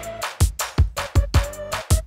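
Electronic dance music with a fast, steady drum beat and a held synth note.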